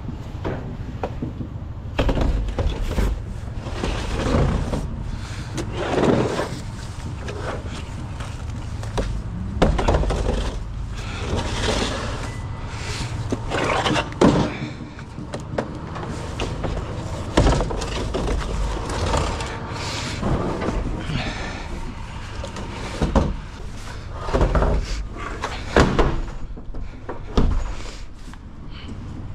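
Empty plastic beverage crates being handled and stacked, clattering and knocking against each other and the truck's metal liftgate in a string of sharp knocks. A steady low rumble runs underneath.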